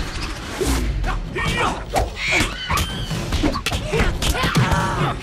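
Fight-scene soundtrack: music under a quick run of hits and thuds, with short shouts and grunts from the fighters, a drawn-out rising cry near the end.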